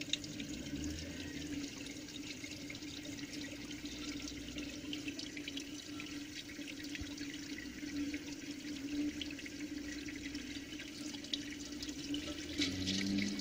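Water in a garden pond heard through a submerged camera: a steady watery rush full of small crackles and clicks, over a low steady hum.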